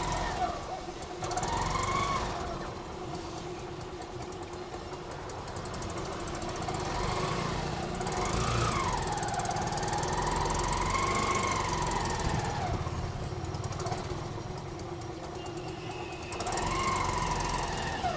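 Engines of passing vehicles, heard as street traffic over a steady low rumble, their pitch rising and falling as they rev and pass; the longest pass comes about halfway through.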